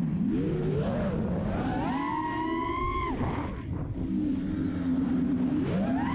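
Four brushless motors and propellers of an FPV freestyle quadcopter whining under throttle. The pitch sweeps up about half a second in and holds high, drops sharply around three seconds with a brief rush of air, then runs lower and steady before rising again near the end.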